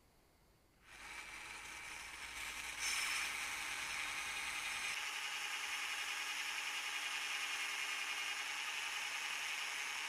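Cordless drill spinning a sanding disc against an axe blade, grinding the edge: a steady motor whine with a harsh abrasive hiss. It starts about a second in and grows louder a couple of seconds later as the blade is pressed to the disc.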